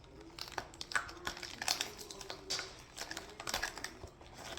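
Cardboard and plastic packaging crinkling, with irregular small clicks, as an advent calendar compartment is opened and a small toy car is handled out of it.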